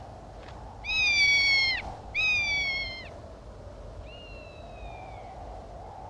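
Rough-legged hawk calling three times: drawn-out, slightly falling screaming whistles about a second long each, the third one fainter, over a steady background hiss.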